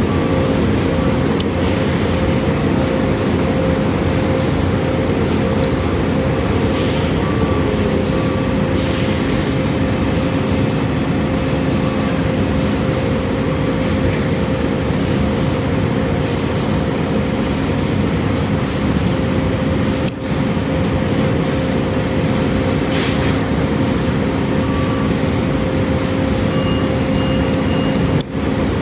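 A steady mechanical drone with a constant hum, like a large vehicle's engine running, and short repeated beeps near the end.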